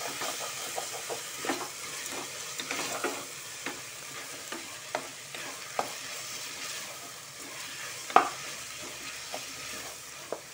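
Chopped vegetables sizzling in hot oil in a pressure cooker while being stirred, with the stirring spoon scraping and knocking against the pot every second or so. The sharpest knock comes about eight seconds in.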